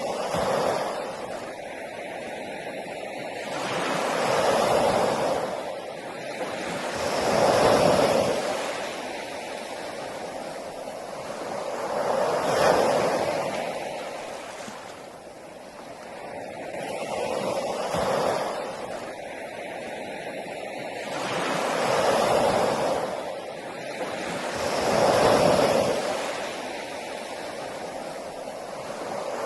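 Sea waves breaking and washing up a shore, each wave swelling and falling away again every three to five seconds.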